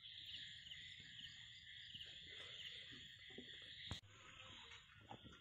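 Faint, steady evening chorus of crickets and frogs, a high continuous trill with small chirps repeating about twice a second. A single sharp click comes about four seconds in.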